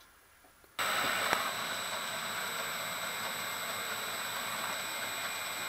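Metal lathe running: it comes in suddenly about a second in and holds steady, motor and gearing noise with a steady high whine.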